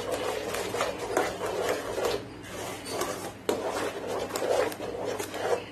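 Wooden spatula scraping and stirring a thick mango pulp and milk powder batter in a nonstick pan, in repeated rasping strokes across the pan's bottom, with one sharper knock about three and a half seconds in. The mix is being stirred cold so the milk powder blends in without lumps.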